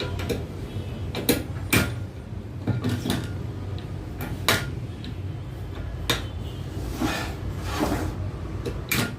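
Handling of a job site table saw and its rip fence: about eight sharp knocks and clacks at irregular intervals, like metal and plastic parts being shifted, set down or latched.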